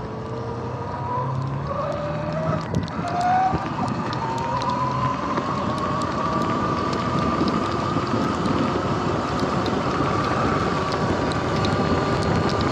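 Sur-Ron Light Bee X electric dirt bike's motor whining, rising in pitch as it speeds up over the first few seconds, then holding steady, with wind noise on the microphone.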